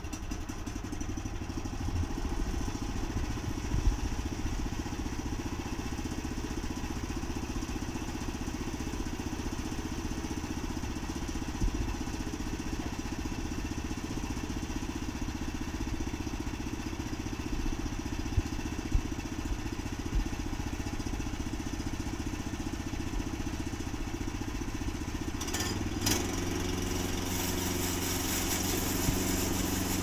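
Small gasoline engine of a portable bandsaw mill running steadily. About 25 seconds in the sound turns brighter and a little louder.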